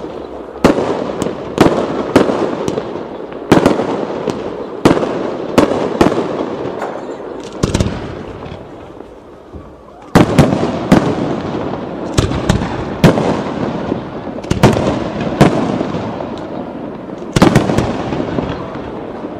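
Aerial firework shells bursting one after another: sharp bangs, each trailing off in a rumbling echo. The bangs thin out and the sound dies down for a couple of seconds before halfway, then a loud bang about ten seconds in starts a fresh run of bursts.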